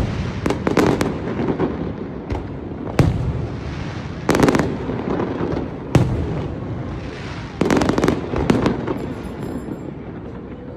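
Aerial fireworks display: shells bursting in a string of sudden bangs every second or two, over a continuous rumble of further bursts.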